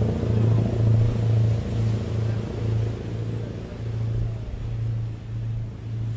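Boat engines running at speed with water rushing past the hull: a steady low drone that pulses about every half second, with the rushing fading somewhat after a few seconds.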